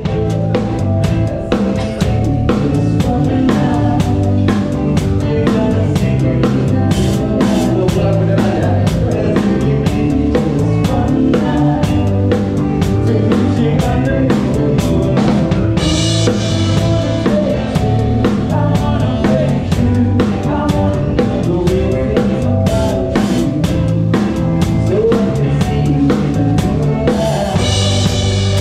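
Live band music dominated by a drum kit played with sticks, heard close up at the kit: kick and snare keep a steady beat over bass and other pitched instruments. Cymbal crashes ring out about halfway through and again near the end.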